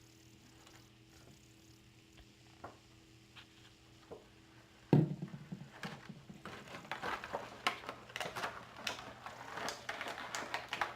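Toy packaging being opened by hand: a few faint clicks, a sharp knock about five seconds in, then a quick run of plastic and cardboard crackles and clicks.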